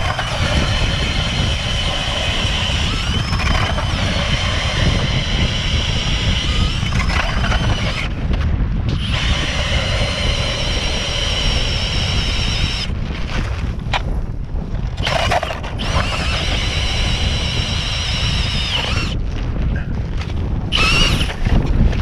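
Cordless drill spinning an ice auger down through hard-packed snow and lake ice, its motor whining steadily and stopping and restarting a few times. Wind rumbles on the microphone throughout.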